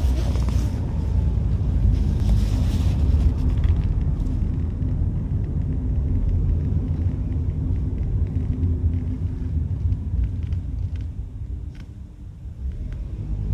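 Honda N-BOX Custom's left sliding door giving off irregular clicks, an abnormal noise from the door, over the car's steady low road rumble while driving.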